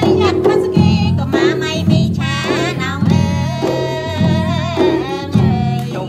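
Background music: a song with a wavering sung melody over bass notes and a regular percussion beat.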